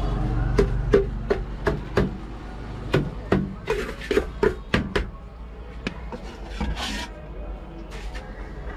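Metal spoon knocking and scraping against a large stainless steel bowl as puffed rice is mixed with spices for jhal muri. A run of sharp clicks, about three a second, fills the first five seconds, followed by a brief scrape about seven seconds in.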